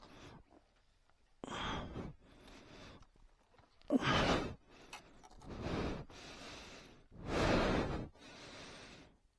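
A person breathing hard, a series of loud exhales about one to two seconds apart, from the effort of walking a heavy motorcycle along by hand.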